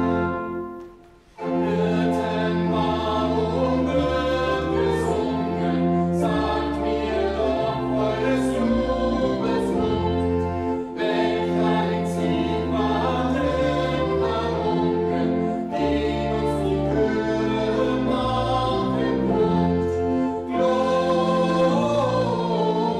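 A man and a woman singing a hymn together with pipe organ accompaniment, sustained low organ notes underneath. The music breaks off briefly about a second in, then carries on.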